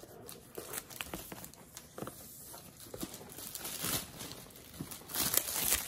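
Clear plastic shrink wrap being peeled off a cardboard box: scattered small crinkles and clicks, turning into a denser, louder crinkling about five seconds in.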